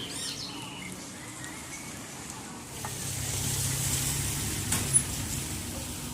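A motor vehicle passing through the flooded street, its engine hum and the hiss of tyres through water building up about halfway in and fading slowly, with a sharp click near the end.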